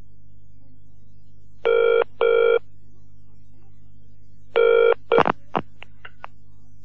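Telephone ringing in the British double-ring pattern: two short rings, a pause, then a third ring cut short, followed by a few clicks as the receiver is picked up. A faint steady low hum runs underneath.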